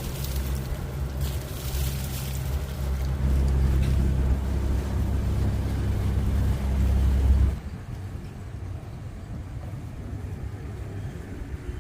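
Boat engine running steadily with a deep hum, then dropping off suddenly about two-thirds of the way through to a much quieter low rumble.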